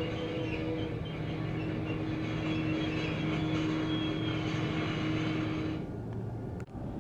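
EMD diesel locomotive running steadily, a deep engine hum with a higher whine and hiss over it; the hiss stops about six seconds in, and the sound briefly cuts out near the end.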